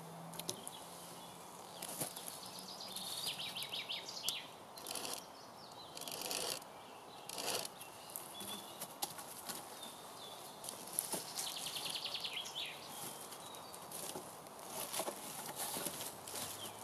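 Thick branches being handled and laid on a forest floor: irregular rustling of dry leaf litter and light scrapes and knocks of wood on wood. A small bird's rapid high trill sounds twice in the background.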